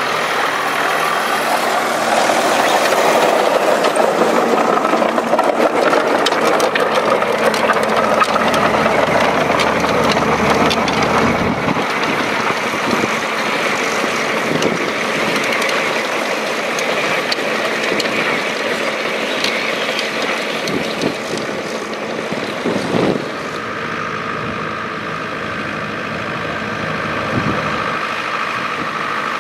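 Volvo BM tractor diesel engine running steadily. It is louder through the first third, then settles to a lower, even level.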